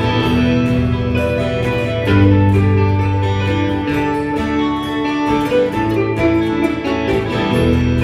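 Instrumental break in a live country song: guitars playing held melody notes over a steady low bass line, with no singing.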